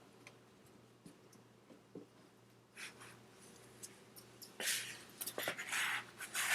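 Small metal parts handled by hand: light clicks, then a short scrape about three seconds in, then a longer stretch of rubbing and clicking from past the middle.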